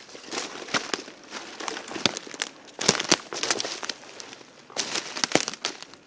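Footsteps crunching and rustling through dry leaf litter and sticks on a forest floor, coming in three bursts of crackling.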